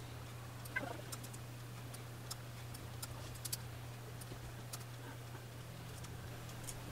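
Faint, scattered clicks of a computer mouse over a steady low hum from the computer, with a short squeak about a second in.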